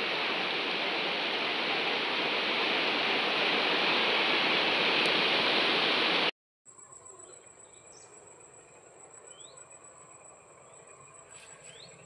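Shallow river rushing over rocks, a steady even rush that cuts off suddenly about six seconds in. After the cut, quieter outdoor ambience: a steady high insect drone and a few short bird chirps.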